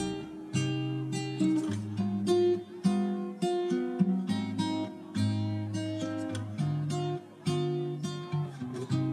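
Gentle acoustic guitar music, a steady run of plucked and strummed notes about two a second.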